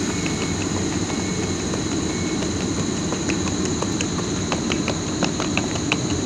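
EU07 electric locomotive at the head of its train, starting to depart: a steady low rumble with a steady high whine. A run of sharp clicks comes in the last couple of seconds.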